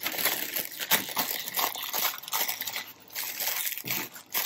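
Plastic packaging crinkling and rustling as hands pull a bubble-wrapped parcel out of a thin black plastic mailer bag, an uneven run of crackles and rustles.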